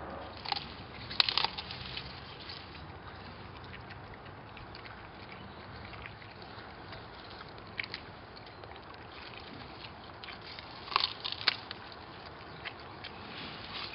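Staffordshire Bull Terriers chewing and tearing at cauliflower plants: scattered crisp crunches and snaps of stalks and leaves, bunched about a second in and again near eleven seconds, over a steady outdoor hiss.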